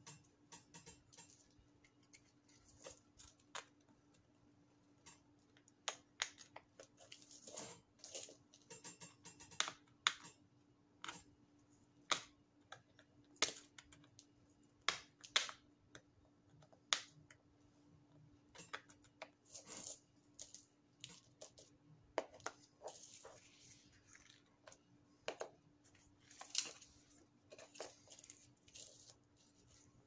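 A plastic pry tool scraping and picking crusty battery-leak corrosion off the metal contacts in a handheld GPS's battery compartment: irregular sharp clicks and short scrapes, with knocks from handling the plastic case, over a faint steady hum.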